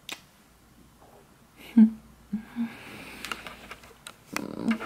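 A soft kiss smack at the start, then a woman's quiet sleepy sounds in bed: a short hum, breathing, and a breathy sigh near the end.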